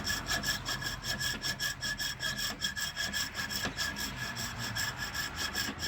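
Coping saw cutting through a shed caribou antler held in a vise, the blade rasping back and forth in quick, even strokes.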